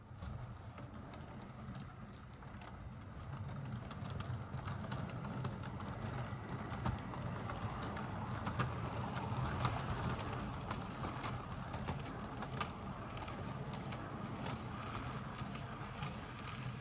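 Model train running along the track: a steady electric motor hum with wheels clicking over rail joints, getting louder toward the middle as the train comes closer, then easing off.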